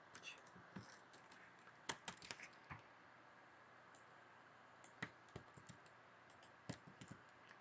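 Scattered keystrokes on a computer keyboard, a few quick clicks at a time with pauses between, while values are entered into CAM software.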